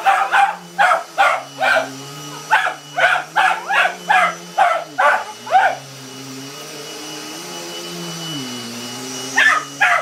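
A dog barking rapidly at a running vacuum cleaner: a quick run of barks, two or three a second for about six seconds, then a pause and two more barks near the end. Under the barks runs the steady hum of the vacuum cleaner's motor, drifting up and down in pitch.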